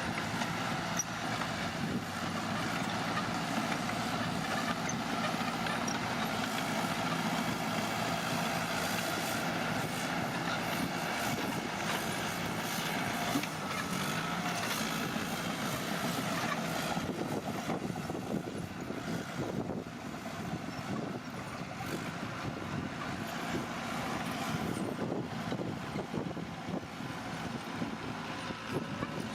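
Heavy construction machinery's diesel engine running steadily, with its level dipping slightly about two-thirds of the way through.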